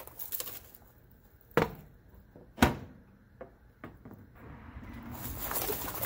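A few sharp clicks, then from about five seconds in a rising crackling inside a running microwave oven that holds a can of brake parts cleaner and a wad of foil.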